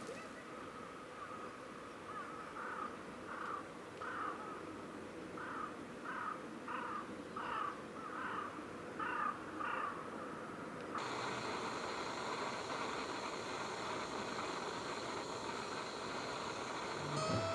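A crow cawing: a run of about a dozen short caws over several seconds. Steady outdoor background hiss follows in the second half.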